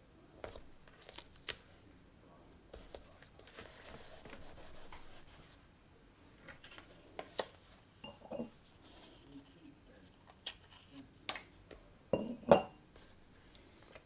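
Hands working on a kraft-paper parcel: light taps, clicks and paper rustles as a sticker is pressed on and a card and twine are handled, with a soft rustle early on and a sharper knock near the end.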